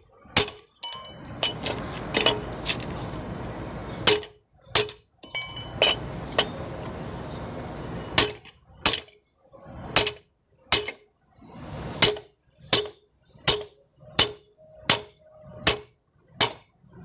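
Hammer blows on a steel socket wrench fitted to a truck's wheel nut (drum bolt), each a sharp metallic clank with a short ring. The blows are irregular at first, then settle into a steady rhythm of about one and a half strikes a second from about eight seconds in, driving the stubborn nut round.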